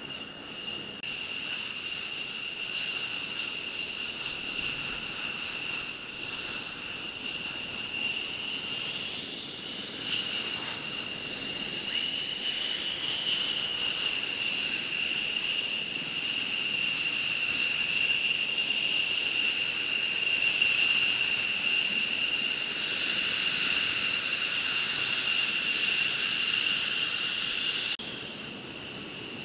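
F-15E Strike Eagle's jet engines running at taxi power: a steady, high-pitched whine made of several tones over a rushing hiss, growing louder as the jet taxis closer, then dropping off suddenly near the end.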